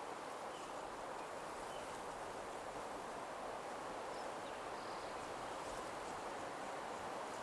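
Steady outdoor nature ambience: an even rushing hiss with a few faint, short bird chirps over it.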